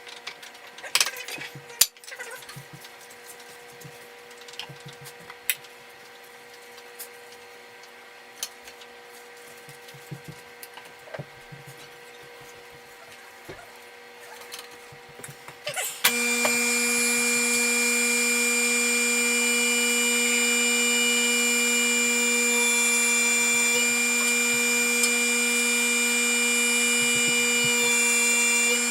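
Electric juicer running as vegetables are fed through, with scattered clicks and knocks. About halfway through, a much louder steady motor hum starts suddenly and carries on.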